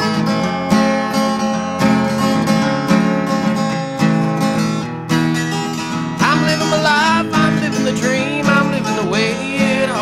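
Acoustic guitar strummed in a steady rhythm of chords. About six seconds in, a voice joins with a wordless, wavering tune over the strumming.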